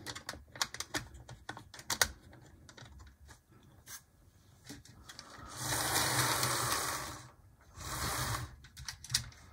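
Sharp plastic clicks as an HO-scale Mehano SD40-2 model locomotive is set onto the track, then its small electric motor whirs with a low hum as it runs along the rails on its first run, starting about five and a half seconds in and stopping and starting again twice.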